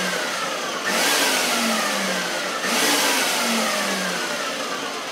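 Food processor pulsed in short bursts, its blade chopping a cauliflower and Parmesan mixture. The end of one pulse and two more, starting about a second in and near three seconds in; each starts sharply and its whine falls away as the motor coasts down.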